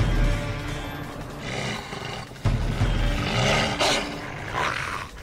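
Dogs snarling and growling while attacking a man, over tense soundtrack music with a deep bass pulse that starts again about two and a half seconds in.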